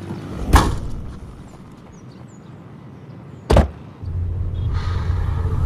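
Two sharp thuds about three seconds apart. Then, from about four seconds in, the steady low rumble of a Toyota's cabin while it is driving.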